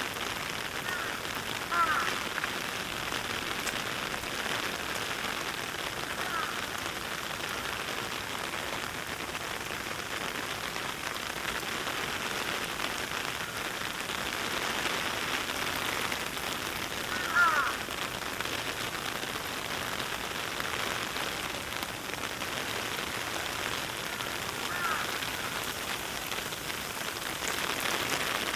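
Steady heavy rain pattering all around. A few short calls cut through, the loudest about two seconds in and again past the middle.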